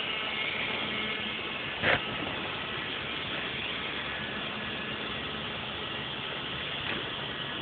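The small motor of a micro RC jet boat whirs steadily as it drives an eight-blade prop. A single short knock comes about two seconds in.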